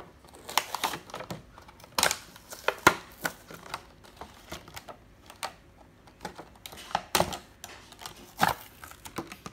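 Clear plastic window packaging of a doll box crackling and snapping as hands flex it and pull it away from the cardboard, in irregular sharp clicks.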